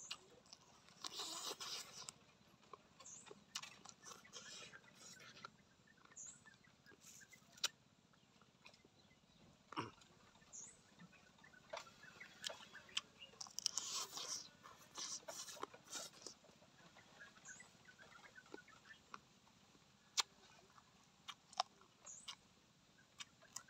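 Quiet eating sounds of a man gnawing chicken feet: wet chewing, sucking and lip smacks with many sharp clicks, and a few short slurping rushes about a second in and again around the middle.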